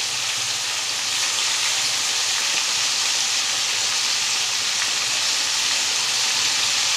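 Yogurt-marinated fish pieces deep-frying in hot ghee in a kadai: a steady, loud sizzle.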